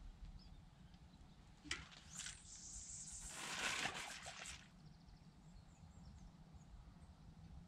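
Casting a feeder rod: a sharp swish as the rod is swung through, then fishing line hissing off the reel for about two and a half seconds as the feeder flies out, loudest near the middle and fading away.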